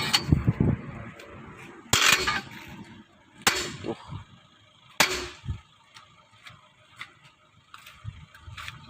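Sharp metal impacts from work on a truck wheel: three loud strikes about a second and a half apart, each ringing briefly, with fainter knocks between.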